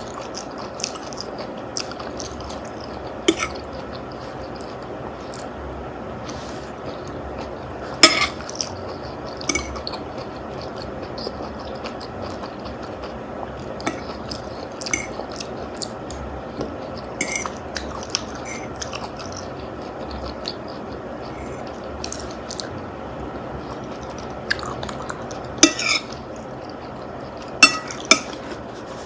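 Cutlery clinking against a plate or bowl during a meal of spaghetti and meatballs: several sharp, scattered clinks, the loudest about eight seconds in and two close together near the end, over a steady background hiss.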